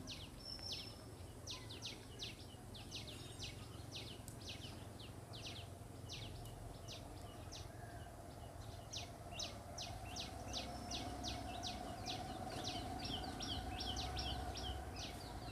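Small birds chirping, a long run of short, high chirps that come faster and closer together near the end.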